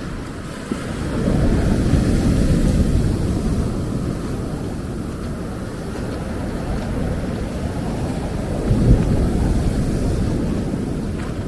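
Ocean surf washing onto a beach, heard mostly as a low rumble, with wind buffeting the microphone. It swells about a second in and again later on.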